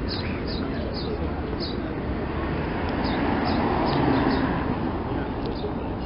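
Steady outdoor street noise with small birds chirping, short high notes repeated every half second or so in runs. A burger's paper wrapper rustles close to the microphone, loudest about four seconds in.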